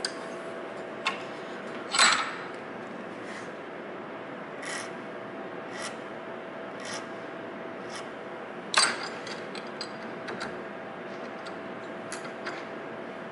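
Short scraping strokes of hand-tool work, roughly one a second for a few seconds, with scattered small clicks and two louder knocks, over a faint steady hum.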